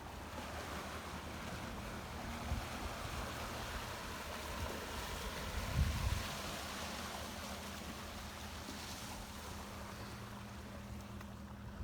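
Small waves washing against a rocky shoreline, swelling and easing, with wind buffeting the microphone in low thumps a couple of times.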